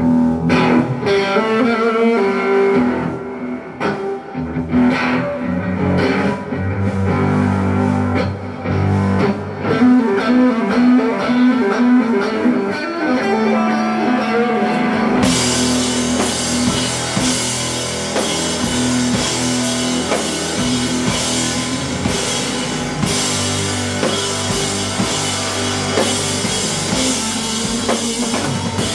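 Live rock band playing an instrumental intro: electric guitar at first, with the drum kit and cymbals coming in fully about halfway through.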